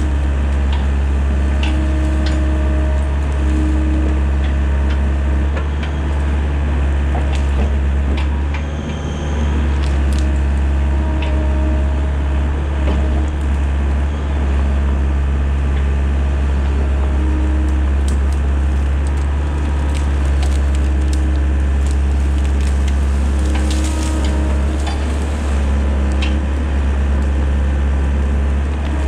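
Mini excavator's diesel engine running steadily under hydraulic load, with brush and small trees cracking and splintering as the bucket and thumb tear them out. The snapping comes in short cracks throughout, thickest in the second half.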